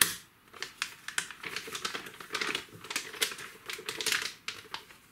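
Plastic wrapping crinkling and crackling as it is pulled open and peeled off a boxed module, in a run of irregular sharp crackles, the sharpest right at the start.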